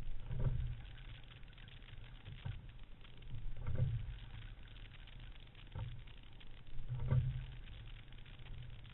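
Single racing scull rowed at a slow, steady rate: a knock and a swell of water rushing past the hull with each stroke, about every three and a half seconds, with fainter knocks in between, over a low rumble on the boat-mounted camera.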